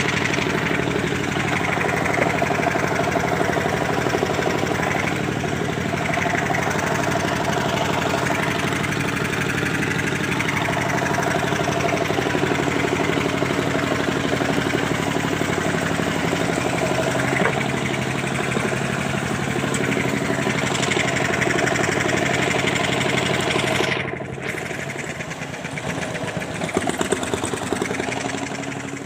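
Engine of a sand-suction dredging pump machine running steadily, then dropping suddenly in loudness about 24 seconds in.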